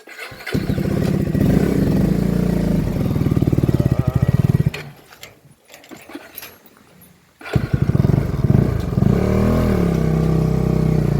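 KTM 250 Adventure's single-cylinder engine running with an even pulsing beat. It drops away about halfway through and is back about three seconds later.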